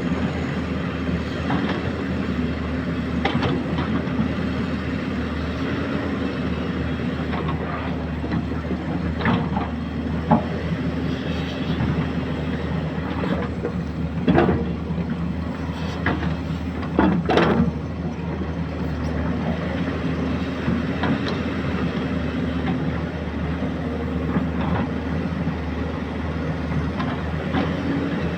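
Excavator's diesel engine running steadily, with a few sharp knocks from the machine at work.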